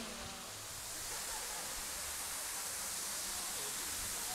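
Steady, even outdoor hiss, brightest in the high range, with no distinct events.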